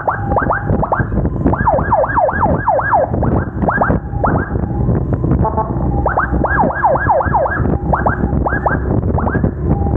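Emergency siren sounding in runs of quick falling sweeps, about five a second, broken by short pauses and a brief steady tone, over a steady low rumble of wind and engine from a moving motorcycle.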